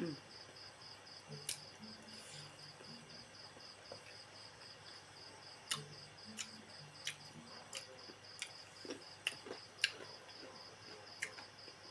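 A cricket chirps steadily in a high, even pulse, about four chirps a second. Over it come scattered sharp clicks and smacks from someone eating.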